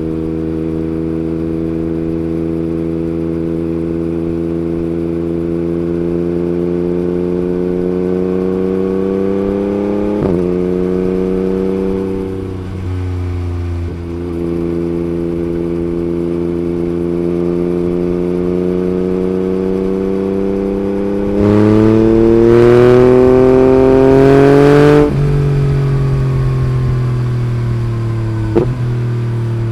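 Yamaha MT-09 gen 3 inline three-cylinder engine through an Akrapovic Racing Line carbon exhaust, heard on board while riding. Revs climb slowly with a brief break and dip about ten seconds in, then a louder hard pull of about three and a half seconds cuts off abruptly. The revs then ease off, with two sharp pops near the end.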